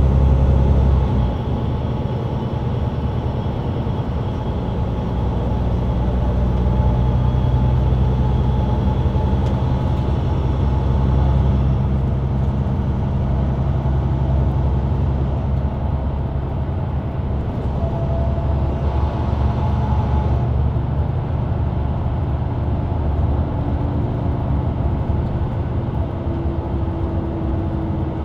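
Interior sound of a Mercedes-Benz Citaro C2 LE bus driving, heard from a rear seat: its diesel engine and ZF EcoLife automatic drivetrain running steadily, with tyre and road noise. The engine note drops a little about a second in.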